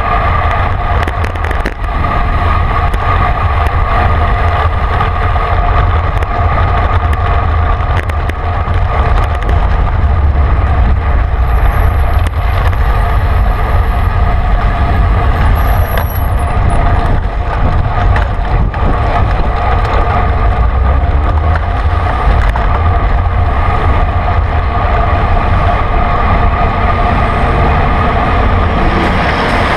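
Steady wind rumble on a bicycle's handlebar-mounted camera while riding in traffic, mixed with road noise and passing vehicles.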